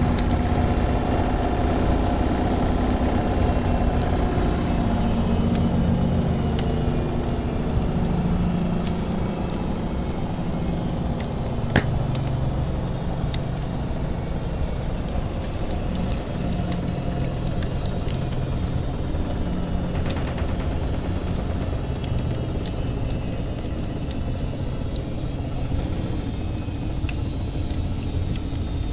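Washing machine running with a steady low hum and rumble, mixed with the scattered pops and crackles of a wood fire; one sharper crackle about twelve seconds in.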